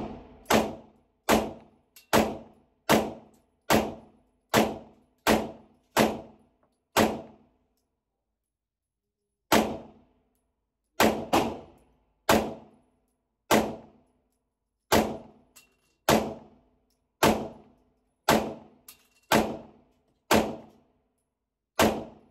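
Canik TTI Combat compensated 9mm pistol firing a steady string of shots, roughly one every 0.7 seconds. There is a brief pause about eight seconds in, then firing resumes at the same pace.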